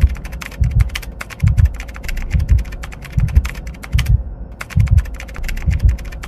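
Rapid keyboard-typing sound effect clicking away as on-screen text is written, with a short pause about two-thirds through. Under it runs a regular low thud, a little more than once a second.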